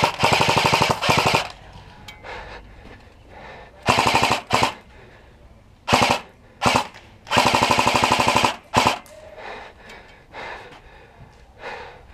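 Airsoft AK-pattern rifle firing full-auto bursts: about six rapid bursts, the longest at the start and another about eight seconds in, with short ones between.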